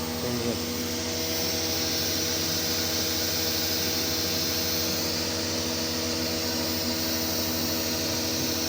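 CNC machine running steadily under test, a steady motor hum and whine with several held tones over a hiss that grows stronger from about a second in.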